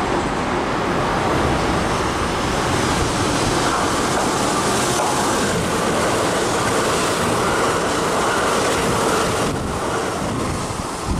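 Kintetsu 21000-series Urban Liner electric limited-express train passing close by, with the steady running noise of its wheels on the rails. The sound turns duller near the end as the last cars go past.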